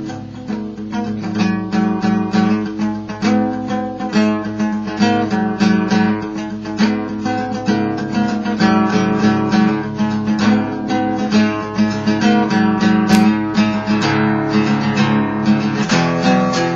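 Acoustic guitar played steadily, strummed and plucked chords in an even rhythm.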